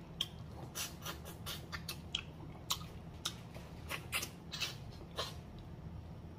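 Close-up mouth sounds of someone eating a braised turkey neck off the bone: irregular wet smacks and sucking clicks, several a second, as the meat is gnawed and sucked from the bone.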